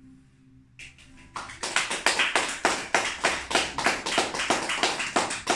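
The last acoustic guitar note dies away, then a small audience breaks into applause about a second and a half in, with individual hand claps clearly heard.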